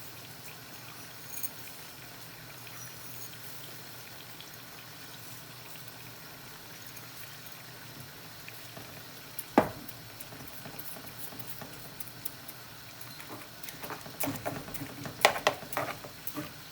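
Paella broth simmering in the pan with a steady bubbling hiss. One sharp knock about ten seconds in, and a run of utensil-on-pan clatter near the end.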